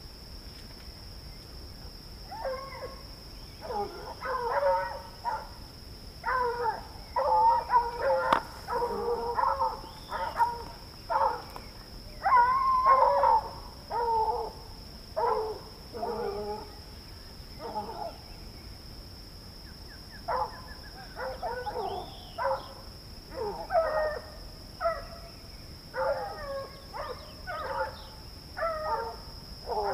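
Hunting dogs barking in short repeated bursts, with a pause of about two seconds a little past halfway.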